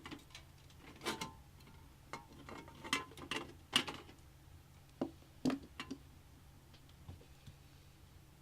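Irregular sharp clicks and light knocks from hard parts and screws being handled in a PC case, with several in quick succession and the loudest about 4 s in.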